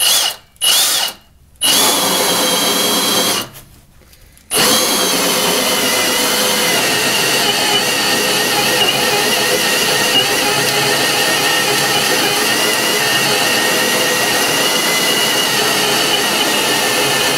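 Milwaukee Fuel Super Hawg right-angle drill driving a 3-inch Hole Dozer bimetal hole saw into a 1.5-inch wooden bottom plate. Two short trigger bursts and a brief run with a pause let the saw start its kerf, then it cuts steadily, the motor whine holding an even pitch.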